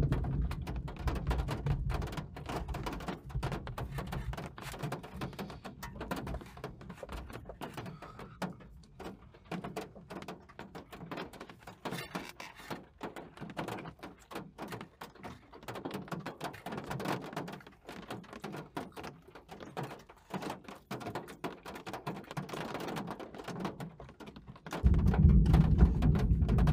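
Rain pattering on a car's roof and windshield, heard from inside the car as a dense run of small taps. A thunder rumble fades over the first couple of seconds, and a new, louder rumble of thunder starts suddenly near the end.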